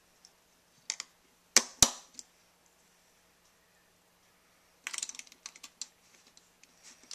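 Plastic snap-together circuit kit pieces being pressed onto a pegboard base and onto each other's snaps. Two sharp snaps come about a second and a half in, and a quick run of lighter clicks and rattles follows near five seconds in.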